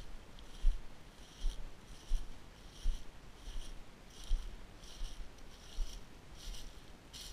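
Footsteps of a person walking on grass and dry leaves, about one step every three-quarters of a second. Each step is a low thud, picked up through the head-worn camera, with a short rustle of grass and leaves.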